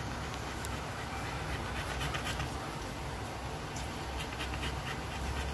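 A pit bull–type dog panting open-mouthed while in labour, with short quick breaths, over a steady low rumble in the background.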